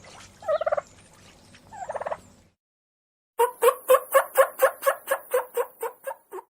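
Turkey calling: two short rattling calls a second or so apart, then after a pause a quick run of about fifteen short notes, roughly five a second, growing a little weaker toward the end.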